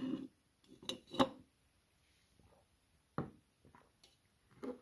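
A few light knocks and taps of a small plastic soda bottle and a glass tumbler being handled and set on a table. There is a soft knock at the start, two sharper taps about a second in, and single knocks about three seconds in and near the end.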